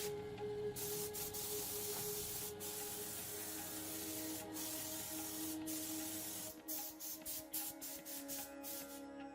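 A steady hiss that breaks into short stop-start bursts from about six and a half seconds in, over background music with long held notes.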